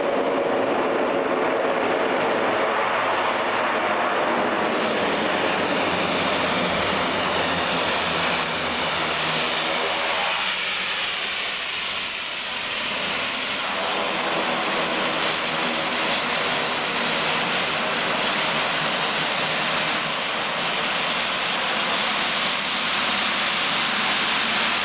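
Twin-turboprop Dornier 228's engines and propellers running loud and steady as it taxis up the runway and onto the apron after landing, the tone shifting about ten seconds in as it turns.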